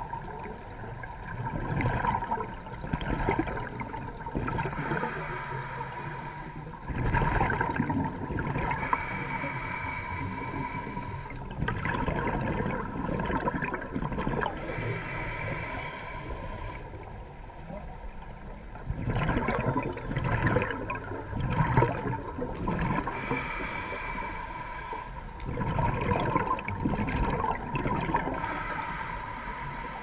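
A scuba diver breathing through a regulator: a hiss on each inhale, then a louder gurgling rush of exhaust bubbles on each exhale, a few slow breaths in turn.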